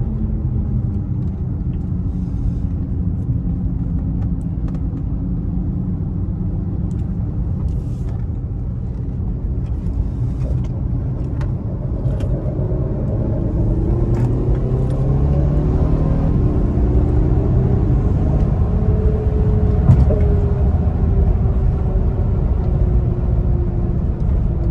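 Infiniti Q50's twin-turbo V6 under way with a steady road rumble. The engine note stays low through the first half, then climbs under acceleration about halfway through and holds higher.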